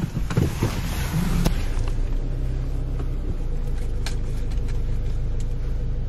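Car driving, a steady low rumble of engine and road noise heard from inside the cabin.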